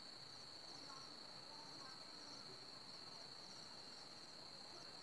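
Faint insect background, likely crickets: a steady high-pitched trill with soft chirps repeating about every two-thirds of a second.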